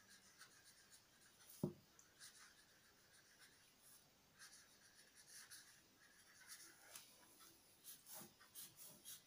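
Faint scratching of a pen on paper as words are written in short strokes, with one sharp knock about a second and a half in.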